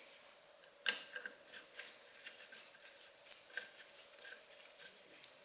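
Light, irregular clicks and taps of metal hand tools being handled, with one sharper knock about a second in.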